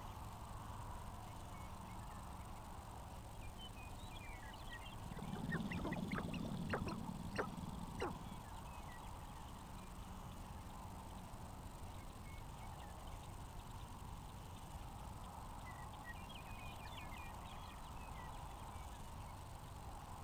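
Male sharp-tailed grouse calling on their dancing ground: scattered short clucking calls, and about five seconds in a louder stretch of low cooing mixed with several sharp cackles, lasting about three seconds. A steady faint hiss runs underneath.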